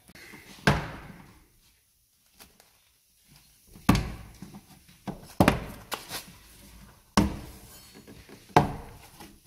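Inner door trim panel of a ZAZ-968M being pried off the door by hand, its push-in clips popping loose: a series of about six sharp knocks and thunks at irregular intervals, with a quiet gap a couple of seconds in.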